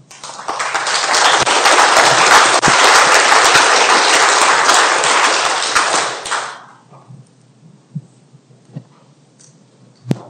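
Audience applauding, starting at once, holding for about six seconds and then dying away. A few faint knocks follow.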